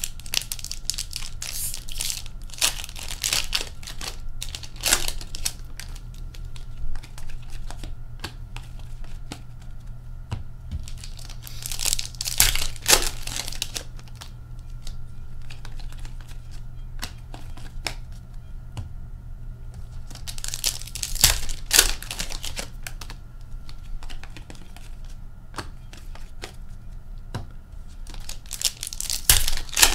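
Foil hockey card pack wrappers being torn open and crinkled, in four bursts several seconds apart. Between the bursts, light clicks and slides of cards being flicked through and set down.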